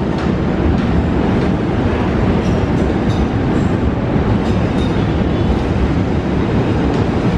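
Container freight train rolling past, its loaded flatcars' wheels on the rails making a steady low rumble with scattered clicks.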